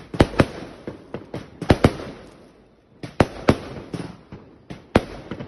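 Consumer fireworks going off in a barrage: about seven sharp bangs of small aerial bursts, irregularly spaced, with a lull of about a second midway.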